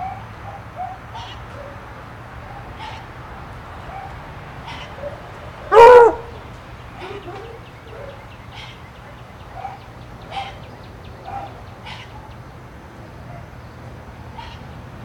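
A dog barks once, loudly, about six seconds in, over faint scattered bird chirps.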